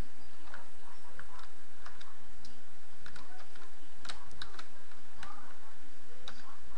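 Computer keyboard keys being typed: short clicks at an irregular pace, with a quick cluster about four seconds in, over a steady low hum.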